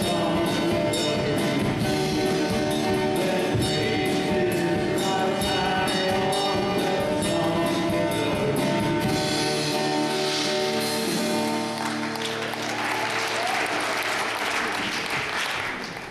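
Live worship song: a man singing with strummed acoustic guitar and a drum kit. About twelve seconds in the song ends on a held chord and the congregation applauds.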